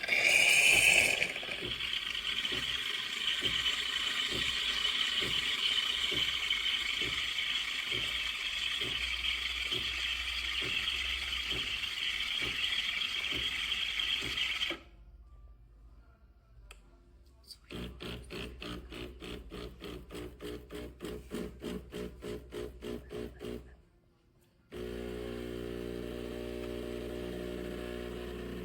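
AIRMSEN 20-bar espresso machine running a drink cycle. For about fifteen seconds it hisses steadily with a low pump pulse about twice a second. After a quieter pause the pump pulses rhythmically about three times a second for several seconds. Near the end this gives way to a steady hum.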